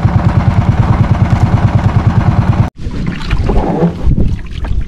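Small outrigger boat's engine running with a fast, even chugging pulse. It cuts off abruptly about two and a half seconds in, leaving uneven water and wind noise.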